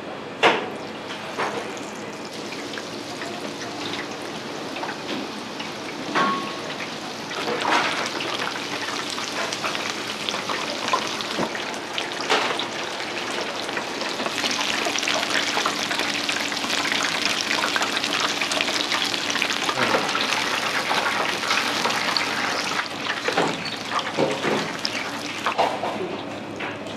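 Tempura deep-frying in hot oil: a steady crackling sizzle that grows denser about halfway through. Occasional clinks and knocks of kitchen utensils come through it.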